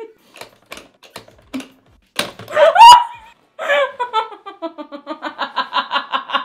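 Sparse single clicks of a Pie Face game's knob being turned. About two seconds in, a woman gives a loud rising shriek as the spring-loaded arm flips up. Then comes long, rhythmic laughter at about five ha's a second.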